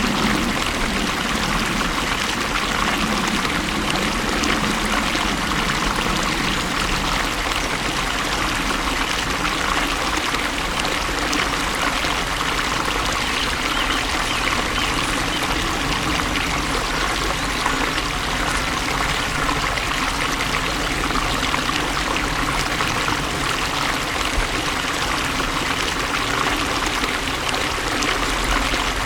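Flowing water running steadily, an even, unbroken rush of water noise.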